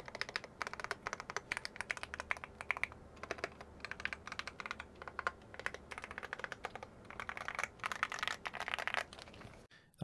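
Fast typing on a KBD8X Mark II tenkeyless mechanical keyboard fitted with HK Gaming PBT keycaps: a dense run of key clacks that cuts off abruptly near the end.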